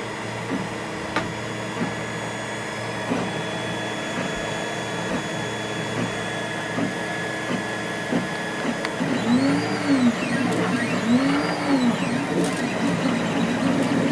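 3D printer running, its stepper motors giving off steady whining tones with scattered light ticks. From about two-thirds of the way in, the motor pitch repeatedly sweeps up and down as the print head speeds up and slows.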